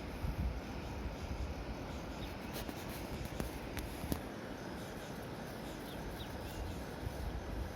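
Outdoor riverside ambience: a steady rushing hiss with low rumbling gusts of wind on the microphone, and a few short, high chirps that fall in pitch.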